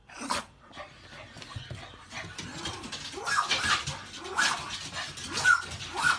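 Poodle whining and yipping in a run of short high calls, about one or two a second, growing louder in the second half.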